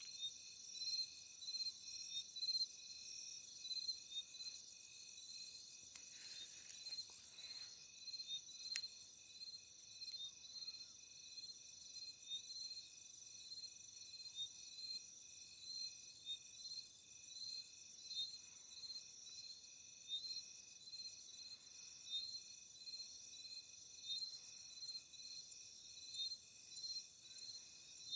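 Night-time chorus of crickets and other insects: several steady high trills layered together, one chirping about once a second and another pulsing rapidly higher up.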